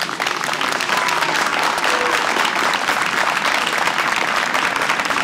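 Crowd applauding, a dense, steady clapping that follows the close of a speech.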